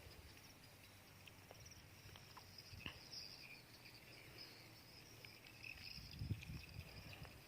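Faint chirping of insects, a thin high pulsing trill, with a few small clicks and a cluster of low bumps about six seconds in.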